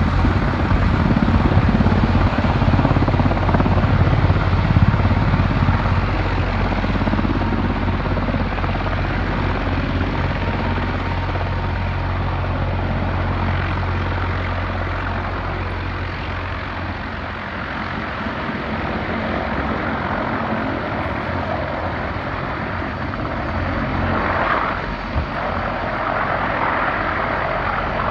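Mi-26 heavy-lift helicopter running on the ground, its twin turboshaft engines and eight-blade main rotor turning. A low rhythmic rotor beat sits under steady turbine noise; the beat weakens a little past halfway, and there is a short louder swell near the end.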